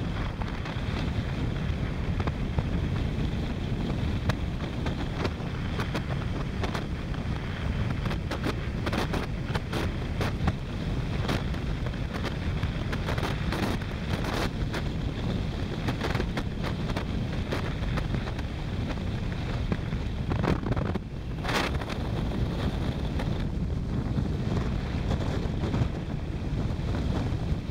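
Wind rushing over the microphone of a camera on a moving motorcycle at road speed. It is a steady dense low rumble with frequent crackling gusts of buffeting.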